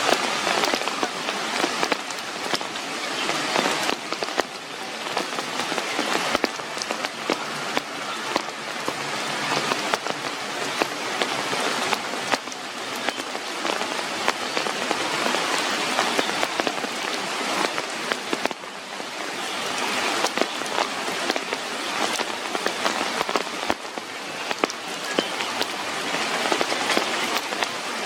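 Heavy rain falling steadily, with many separate drops striking hard close by.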